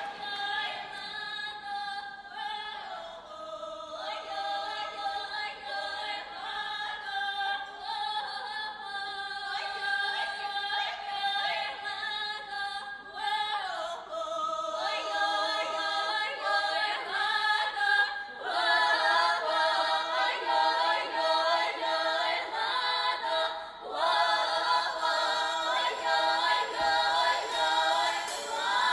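Women's Russian folk choir singing a drawn-out song in close harmony, growing fuller and louder about two-thirds of the way through.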